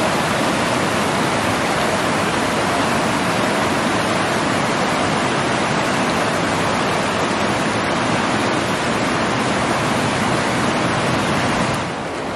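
Small rocky trout stream rushing over boulders and riffles, a steady rushing of water that drops to a lower level near the end.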